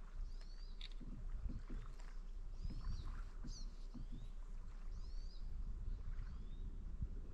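Kayak being paddled: the paddle blades dip and swish through the water in steady strokes. Short high squeaks recur about every two seconds, mostly in step with the strokes.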